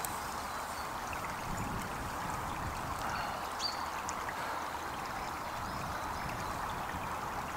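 A small woodland stream babbling steadily, with a few faint ticks over it.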